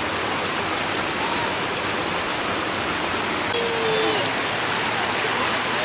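Shallow stream of running water babbling steadily, an even hiss with no pauses. A short high-pitched call cuts in briefly about three and a half seconds in.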